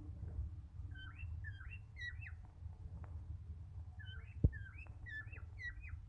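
Male cockatiel whistling its song in two short phrases of quick up-and-down whistles, the first about a second in and the second about four seconds in. A single sharp click sounds in the middle of the second phrase.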